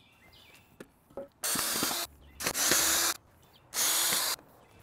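Cordless drill running in three short bursts of about half a second each, backing screws out of a wooden 2x4 stand so the studs can be taken apart.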